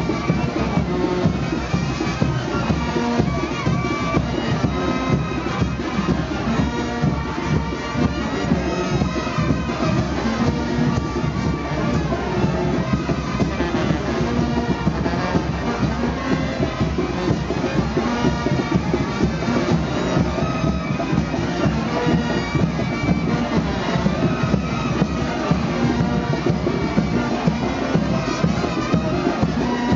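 Brass band playing a lively chinelo dance tune, with wind instruments over a steady, driving drum beat.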